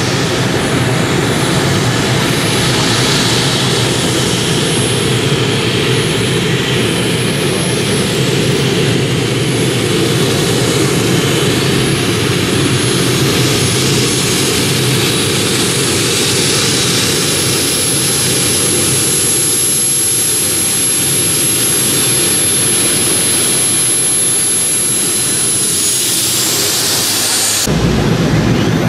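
Gas turbine engine of a modified pulling tractor running steadily: a high thin whine over a loud rushing exhaust. Near the end the whine falls away and the sound cuts abruptly to a different, deeper engine.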